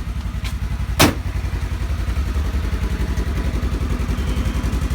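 Polaris General 4 UTV engine idling with a steady, even low pulse. One sharp click sounds about a second in.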